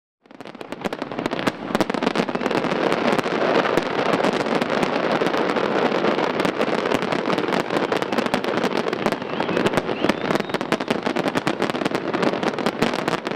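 Fireworks display: a dense, continuous crackle of many small pops and bangs, starting suddenly.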